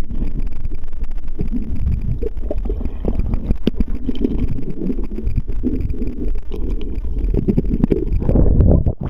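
Muffled underwater rumble and water movement picked up by a submerged camera, with scattered clicks and knocks throughout, swelling louder near the end.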